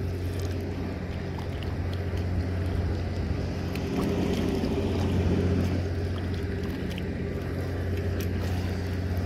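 A steady low motor hum, with faint splashing from a hooked fish thrashing at the water's surface over it.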